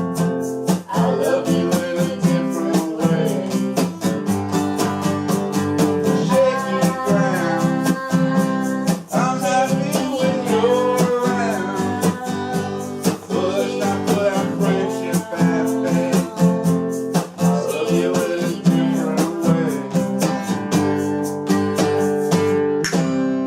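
Acoustic guitar strummed in a steady, even rhythm, with a wavering melody line over the chords: an instrumental stretch of a song.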